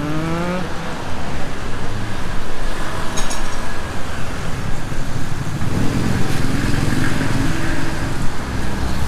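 Busy road traffic with cars and motorcycles driving by. One engine rises in pitch at the start, and another engine runs close by and louder from a little past the middle.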